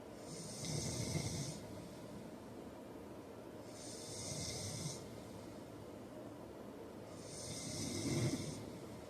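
A man snoring in his sleep: three slow snores about three and a half seconds apart, each a breathy rasp over a low rumble, the last one the loudest.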